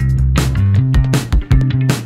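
Background music with a steady beat, drums over bass.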